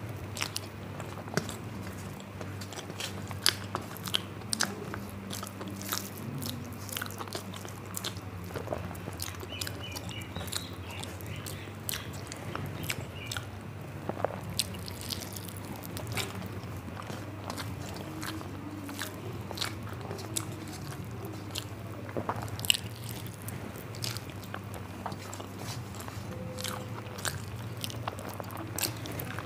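Close-up eating sounds of a person chewing mouthfuls of rice and curry, with many short wet mouth clicks and smacks. A steady low hum runs underneath.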